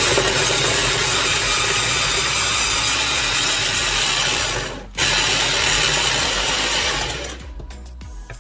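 Electric mini food chopper whirring as it grinds turmeric, onion, garlic and galangal into a paste. It cuts out for a moment about five seconds in, runs again for about two seconds, then stops.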